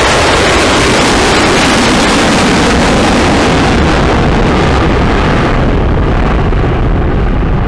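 Jet engines of an Airbus A330 at takeoff thrust as it lifts off and climbs away: a loud, steady rush of noise over a deep rumble. The hiss fades from about five and a half seconds in, leaving a duller rumble as the airliner draws away.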